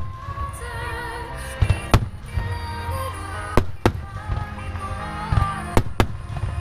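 Aerial firework shells bursting in a display set to music: a handful of sharp bangs, some in quick pairs, over steadily playing music.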